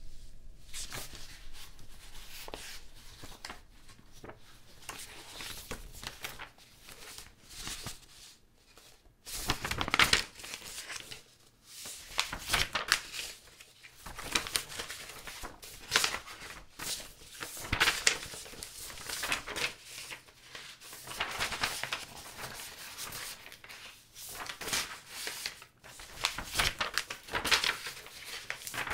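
Sheets of paper being handled, rustling and crinkling in irregular bursts, some louder than others.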